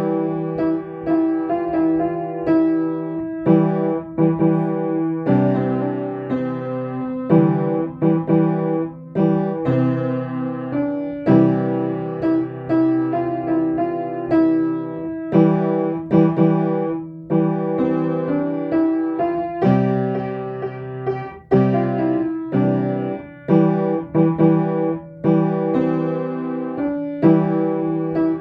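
Solo piano playing a calm piece: chords struck one after another, with a note in the middle register sounding on throughout.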